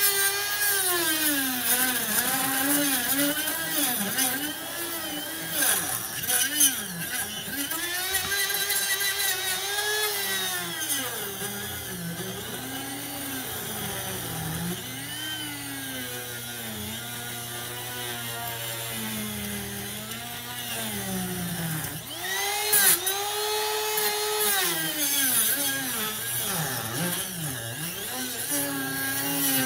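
Dremel rotary tool with a cut-off wheel grinding into a rusted, seized metal forward/reverse shifter. Its motor whine repeatedly dips in pitch as the wheel bogs under load and then winds back up. There are a few sharp clatters about six seconds in and again near the end.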